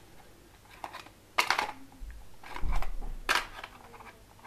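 Hard plastic parts of a Dye Rotor paintball loader being handled and fitted back together: a few sharp clicks and knocks, bunched about a second and a half in and again near three seconds, with a low bump of handling under the later ones.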